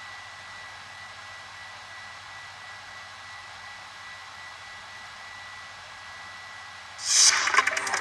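Steady hiss with a faint, thin high tone, then music with plucked strings starts suddenly about seven seconds in.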